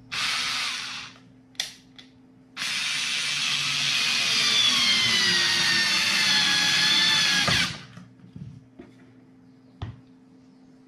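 TECCPO 4 V cordless screwdriver driving a screw into a wooden strip: a short burst of about a second, a brief blip, then a long run of about five seconds whose whine slowly falls in pitch before stopping abruptly. A faint click follows near the end.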